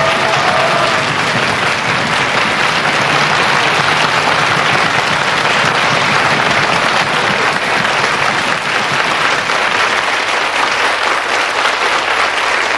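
Large studio audience applauding steadily, a dense continuous clatter of many hands clapping.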